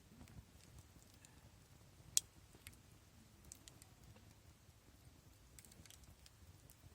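Wood campfire crackling faintly, with scattered small pops and one sharper, louder pop about two seconds in, over a low rumble.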